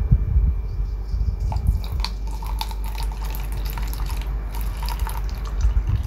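Distilled water poured from a large plastic jug into a plastic measuring jug, trickling and splashing as it fills; the splashing starts about a second and a half in. A steady low rumble runs underneath.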